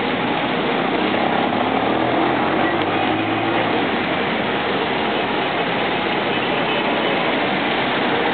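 Steady street traffic noise, with a vehicle's engine hum passing about two to three seconds in.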